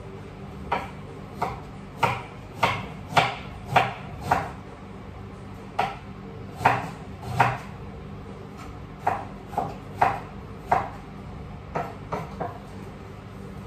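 Kitchen knife chopping on a cutting board: sharp, separate knocks in short irregular runs with pauses between them.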